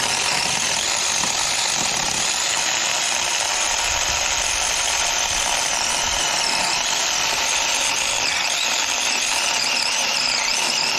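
Seesii 21-volt battery-powered mini chainsaw running without a break, its chain cutting through dry hardwood. It makes a steady high electric whine that dips in pitch now and then as the chain bites under load.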